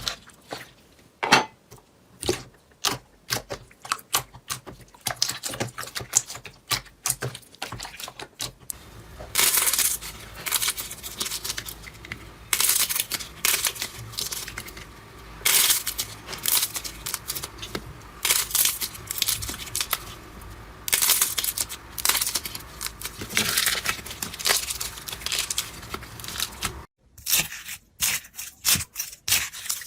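Slime being pressed, poked and stretched by hand, giving a run of sharp crackling clicks and pops, with softer squishing between them.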